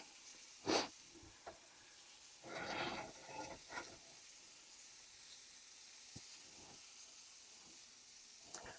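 Shrimp sizzling in hot oil in a stainless steel pan, a steady high hiss. A sharp knock about a second in and a clattering, scraping stretch around three seconds in as the shrimp are moved around the pan.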